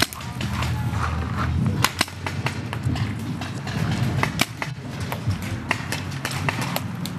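Paintball markers firing: many sharp pops coming in quick, irregular strings.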